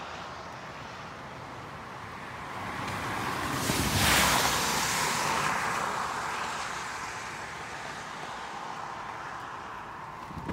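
A car passing on the road: tyre and engine noise swells to a peak about four seconds in, then fades away slowly.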